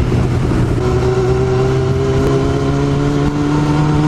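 Motorcycle engine running steadily at cruising speed, with wind rushing over the rider-mounted camera. About a second in, a higher engine whine joins and sinks slowly in pitch.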